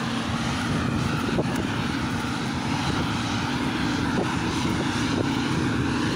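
Heavy diesel farm machinery working a silage harvest: a steady engine drone with a constant hum.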